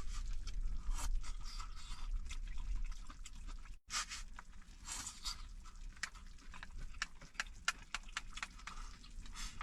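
Eating: irregular clicks and scrapes of chopsticks against a pot or bowl, with chewing, over a steady low rumble.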